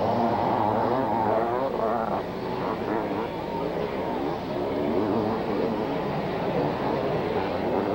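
Several 500cc two-stroke motocross bikes racing past, their engines revving up and down over one another.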